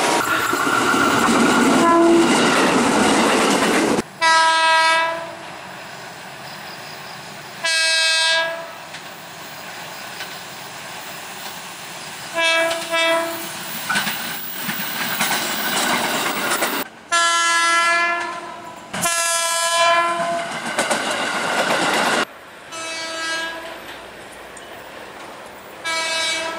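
KRL commuter electric trains sounding their horns: about six short blasts, each a multi-tone chord, between stretches of train running noise and wheel clatter. The first few seconds hold the loud rush of a train passing close by.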